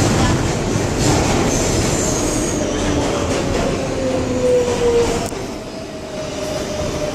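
R142a subway train slowing into a station: rumbling wheel and track noise under a motor whine that slides down in pitch. About five seconds in, the noise drops sharply as the train nears a stop, leaving a quieter steady tone.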